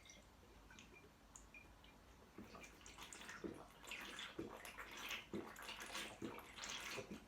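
Water splashing and running in irregular bursts in a kitchen sink, starting about two seconds in after a few faint clicks.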